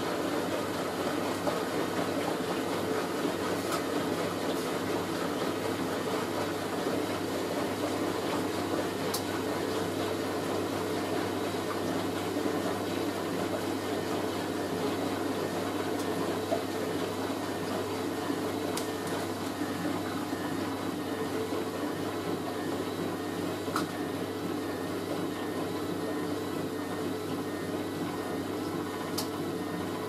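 Hoover A3060 front-loading washing machine on its spin cycle with a load of bedding, the drum turning at a steady speed with an even motor hum.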